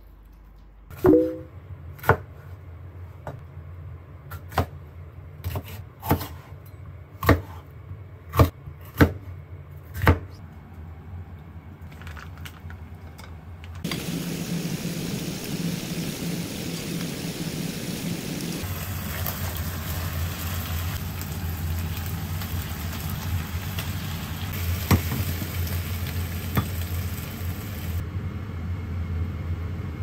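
About eight sharp clinks of tableware during a meal. Then, about halfway, a steady sizzle of chicken breast pieces frying in oil in a frying pan.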